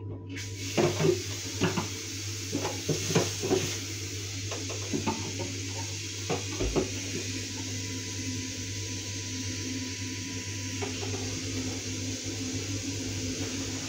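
Bathroom sink tap turned on and running steadily into the basin, with a run of knocks and clatters in the first half as a small bin is handled and rinsed against the sink.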